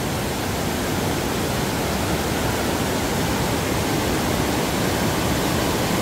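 Swollen mountain stream in spate after heavy rain, white water rushing over rock slabs and boulders: a steady, dense rush of water with no breaks.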